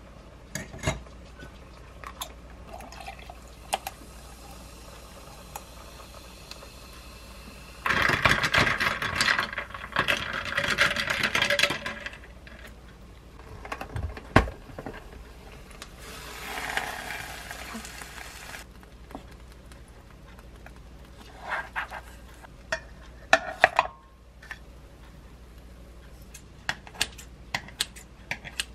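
A string of kitchen sounds while a drink and a toasted sandwich are made: a spoon clinking against a glass of ice, then liquid poured into the glass, with loud pouring for a few seconds. About halfway there is a sharp knock as the lid of a sandwich maker is shut, and near the end come quick snips of kitchen scissors cutting through toast.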